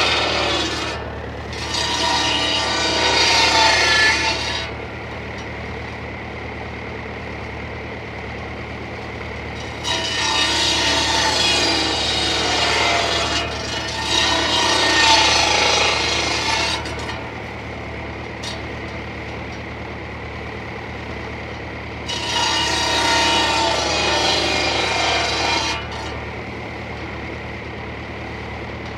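Tractor-driven circular saw cutting wood in several passes of a few seconds each: one ends about a second in, another runs from about 2 to 5 seconds, two follow back to back from about 10 to 17 seconds, and another from about 22 to 26 seconds. Between cuts the blade spins freely over the steady drone of the tractor engine driving it.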